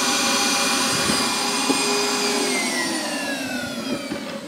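Shop dust extractor's motor running with a steady whine while all the blast gates are closed, so it pulls against a sealed system with no airflow. About two seconds in it is switched off and winds down, its whine falling steadily in pitch and fading.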